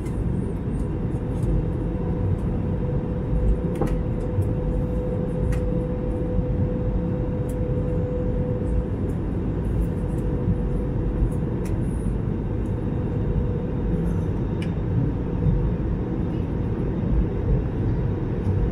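Steady cabin noise aboard an Airbus A321neo airliner: a low, even rumble with a steady hum running through it and a few faint clicks and rattles.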